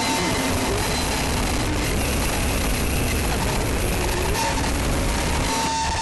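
Dense, harsh wall of noise music, steady in level, with a few thin held tones sounding through it. Just before the end it briefly cuts out and then carries on duller.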